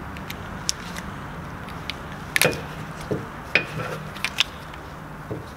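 Small metal clicks and clinks, a few with a short ringing note, as the wire circlip is pried out of a piston's gudgeon-pin bore. A low steady hum runs underneath.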